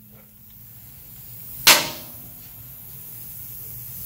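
A single sharp metallic clank about halfway through, with a brief ring after it, as a tool knocks against metal under the car. Otherwise only low, steady background noise.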